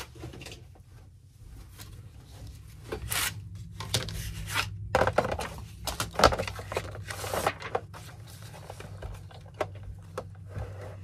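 Crinkling and rustling as craft supplies are rummaged through and handled on a table, with scattered light knocks and clicks, busiest in the middle. A low steady hum runs underneath.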